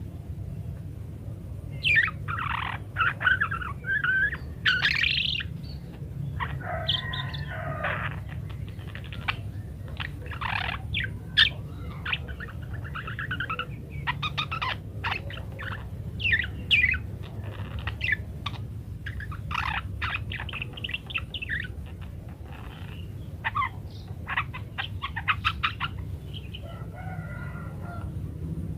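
Budgerigars chattering and warbling: a busy run of short chirps, trills and squawks, over a steady low hum.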